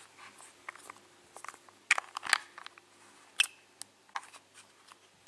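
Plastic Play-Doh toy pieces clicking and tapping as they are handled and pressed together: a dozen or so small sharp clicks, the loudest about two seconds in and again a little after three seconds.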